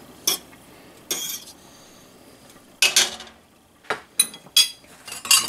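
Metal fork clinking and scraping against the side of a stainless steel pot while searching through broth, about seven irregular clinks, some ringing briefly.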